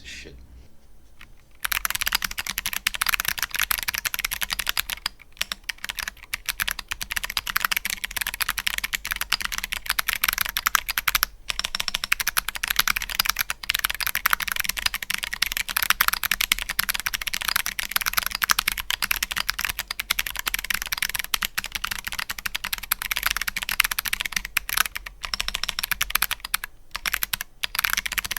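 Fast typing on a Keychron Q10 mechanical keyboard with ZealPC Clickiez switches in clicky mode, a POM plate and MT3 ABS keycaps. Rapid key clicks start about a second and a half in and run on with a few short pauses.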